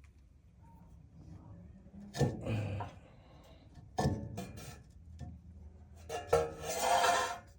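Heavy metal knocks and scraping from a brake rotor being handled and fitted onto the wheel hub: three knocks, each followed by a grinding rub with a metallic ring, the longest near the end.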